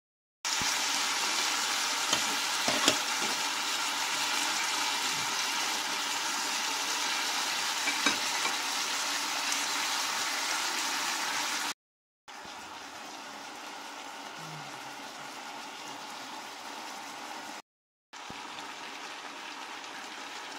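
Chicken breast strips and sliced onions sizzling in olive oil in a frying pan, with scattered small crackles, as the chicken browns. The sizzle breaks off twice for an instant and is quieter after the first break.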